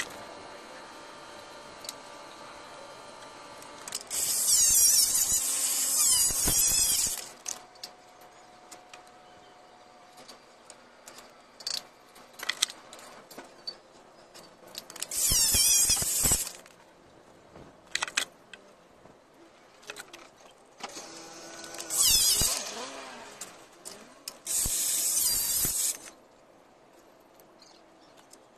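A tool working against ceramic wall tile, in four harsh, high squealing bursts of one to three seconds, with short clicks and taps of tiles being handled between them.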